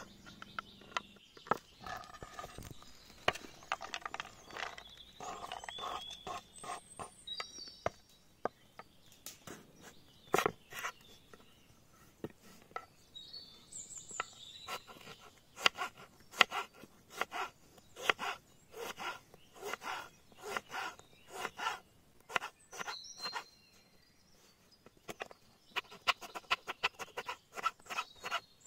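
Kitchen knife chopping garlic cloves, then slicing a tomato, on a wooden cutting board: runs of sharp taps with short pauses between them. Birds chirp briefly a few times.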